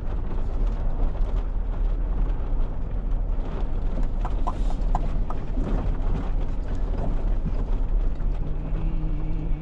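Camper van driving slowly, a steady low rumble, with a low steady hum joining in about eight seconds in.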